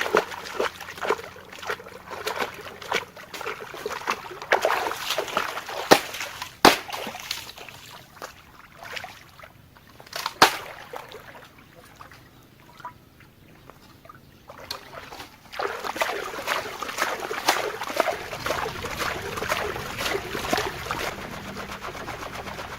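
Water splashing and sloshing in bouts, with a quieter stretch in the middle and a few sharp knocks in the first half.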